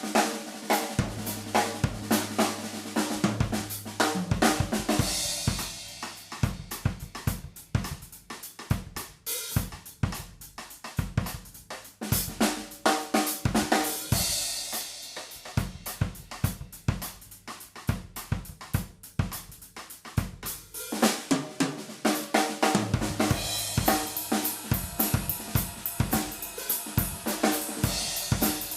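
Yamaha Stage Custom Birch Bebop drum kit played continuously: rapid snare, bass drum and hi-hat strokes with cymbal crashes, and a deep ringing low drum early on and again near the end.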